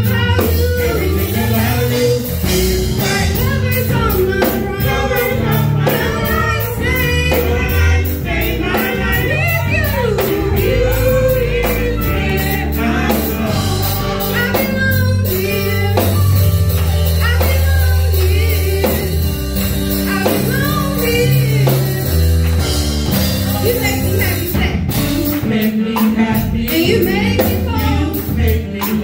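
A small gospel vocal group, men and women, singing together through microphones and a PA. They are backed by keyboard, a strong bass and a steady percussive beat.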